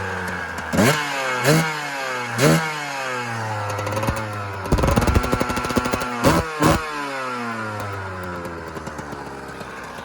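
1996 Suzuki RM125's single-cylinder two-stroke engine being revved: quick throttle blips, a held high rev about five seconds in, two more sharp blips, then dropping back to idle near the end.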